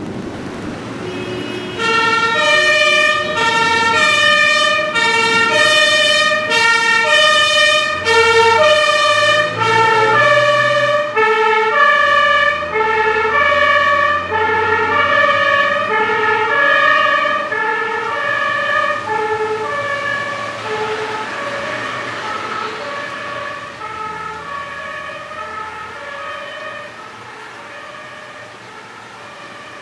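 Fire engine's two-tone siren (German Martinshorn) alternating between a high and a low note. It starts suddenly about two seconds in, stays loud for about fifteen seconds, then fades slowly as the vehicle moves away.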